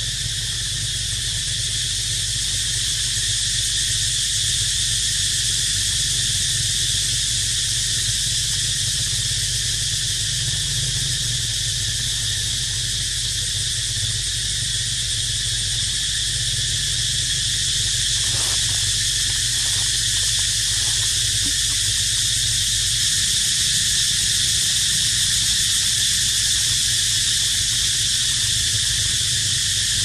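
A chorus of cicadas calling in a steady, high-pitched drone that never lets up, with a low rumble underneath.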